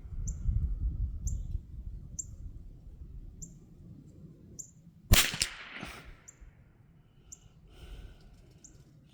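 A single shot from a Ruger American Long Range Target .22 LR rifle about five seconds in: one sharp crack with a short echo trailing off. A bird gives short high chirps about once a second throughout.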